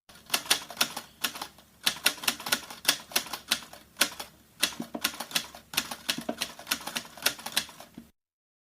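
Typing: rapid, irregular keystroke clicks in short runs of several strokes each.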